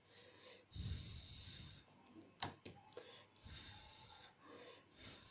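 A person breathing audibly close to the microphone, several long breaths a second or two apart, with a few faint clicks around the middle.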